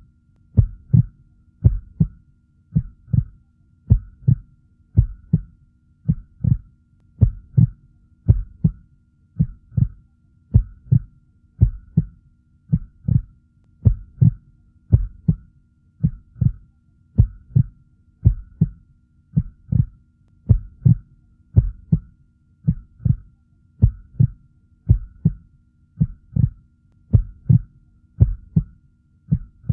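Heartbeat: low, dull double thumps (lub-dub) repeating evenly at about one beat a second.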